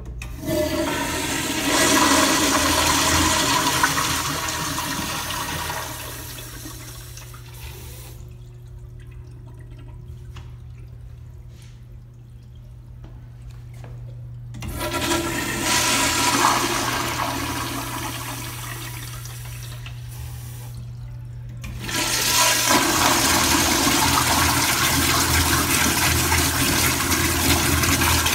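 Crane Placidus commercial toilet flushing through its chrome flush valve, water rushing into the bowl and swirling down the drain. The loud rush comes three times: at the start, again about 15 seconds in, and once more about 22 seconds in. A steady low hum runs underneath.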